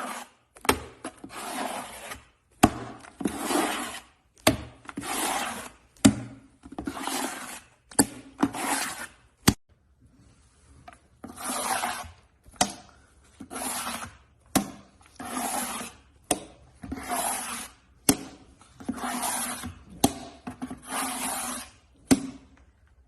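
Crackling, scraping strokes repeated about once a second, with sharp clicks between many of them and a short pause a little before halfway.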